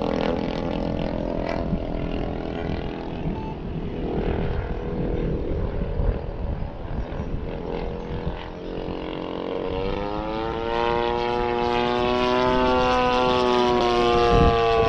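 DLE 85 twin-cylinder two-stroke gasoline engine of a large radio-control FW-190 model droning in flight, run rich. About two-thirds of the way through its pitch rises and it grows louder as the plane comes closer, then it holds and eases slightly down near the end.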